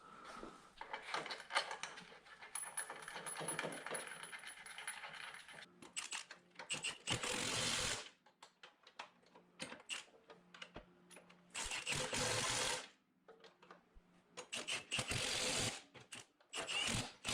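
A power tool running bolts in, in short bursts of about a second that start and stop abruptly, with clinks of metal bolts and tools in between.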